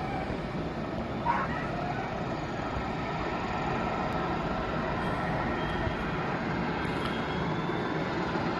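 Steady rumble of a distant helicopter running on its landing pad, with a faint high whine over it. A brief, sharper sound breaks through about a second in.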